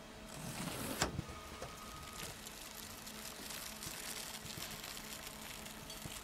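Paint roller sound effect: a swelling whoosh that ends in a sharp click about a second in, then a steady sticky, crackling hiss as the wet roller spreads paint.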